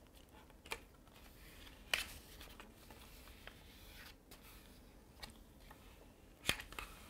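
Stiff 90 g paper being rolled over and folded down, rustling with a few sharp crackles, the loudest about two seconds in and near the end, while a plastic card scrapes along the fold to press the crease flat.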